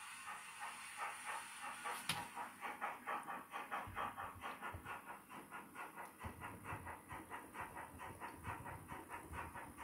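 Sound decoder of a Roco H0 model class 50 steam locomotive playing steam exhaust chuffs as the model runs with its train, about three a second at first and quickening to about four a second. There is a sharp click about two seconds in.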